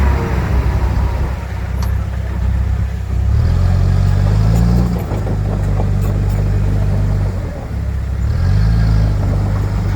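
Heavy-equipment diesel engine running under load, revving up about three seconds in and again near the end, with brief drops in between.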